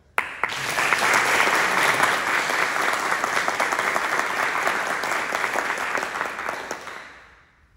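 A group of people applauding: clapping that breaks out suddenly right after a speaker's closing thanks, holds steady, then dies away about seven seconds in.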